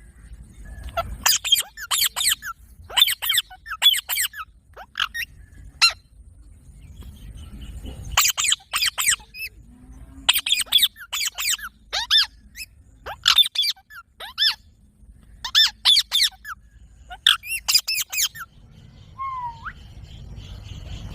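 Parrot giving repeated short, shrill squawking calls in quick groups of two or three, with a brief lull about six to eight seconds in and a single lower call near the end.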